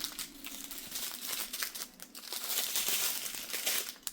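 Small plastic bags of diamond painting drills crinkling and rustling as they are handled and sorted, in uneven bursts.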